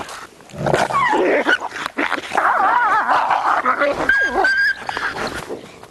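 Gray wolves squabbling over a kill: rough snarling for the first couple of seconds, then high, wavering whines and yelps, ending in a briefly held high whine. These are the dominance and submission sounds of a pack at feeding, the low-ranking wolf whining as it is kept off the carcass.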